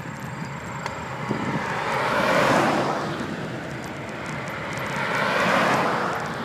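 Two vehicles passing in turn, each rising and then fading, about three seconds apart.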